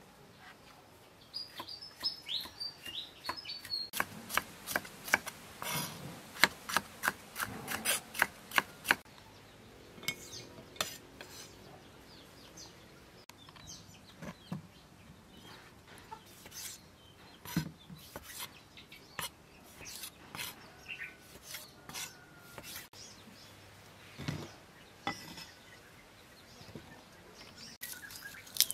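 Kitchen knife chopping tomatoes and peppers on a wooden chopping board: a quick run of sharp cuts, about three or four a second for some five seconds, then scattered single cuts.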